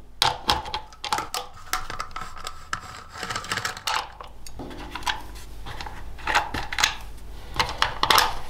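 Bolts being unscrewed from a Yamaha Ténéré 700's plastic stock rear fender with a metal T-handle socket wrench: a run of irregular clicks, clinks and knocks as the tool and fender are handled.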